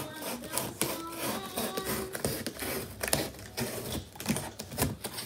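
Rapid, irregular clicking, knocking and rustling of handling noise as the camera is moved about and brushes against things close to it.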